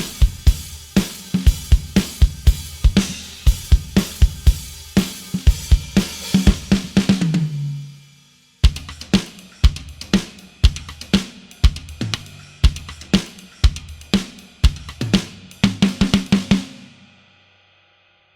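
Sampled acoustic drum kit from the EZdrummer 3 Gospel EZX library playing a groove of kick, snare, hi-hat and cymbals. The first pattern ends in a fill about 7.5 s in, a second groove starts about a second later, and it stops near the end and rings out.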